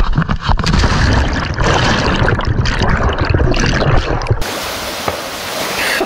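Loud water sloshing and churning close to the microphone, with a heavy rumble. About four seconds in it gives way abruptly to the steady rush of a mountain stream.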